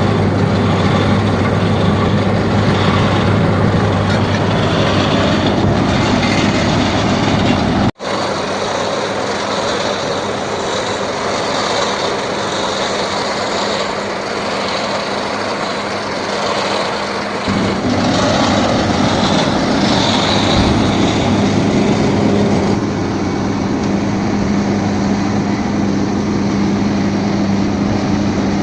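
Engines of heavy road-construction machinery running steadily with a low, even hum. The sound drops out for an instant about a third of the way in and changes tone abruptly a little past the middle.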